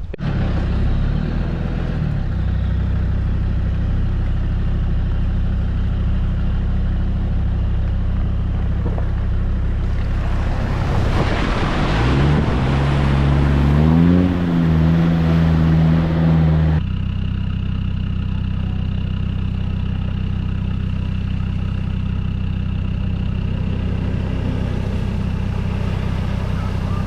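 Land Rover engine running at a steady drone on the road. About ten seconds in a louder rush of road noise joins it, and the engine pitch rises as the vehicle accelerates. Just under seventeen seconds in the sound changes abruptly back to a steady, quieter drone.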